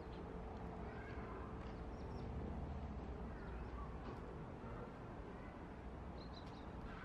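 Outdoor ambience: a steady low rumble with scattered short, high bird chirps.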